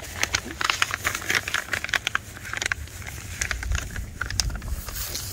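Potting soil mixed with compost and amendments being stirred by hand in a container: a gritty run of rustles and crackles, thinning after about three seconds, with a low rumble rising in the second half.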